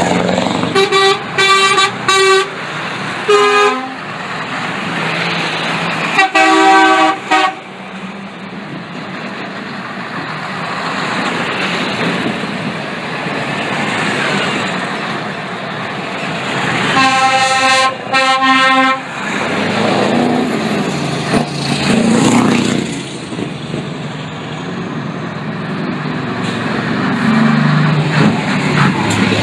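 Heavy trucks rolling past in a convoy with their diesel engines running, and truck horns sounding in groups of short blasts: several just after the start, a pair about six seconds in, and more at around seventeen seconds.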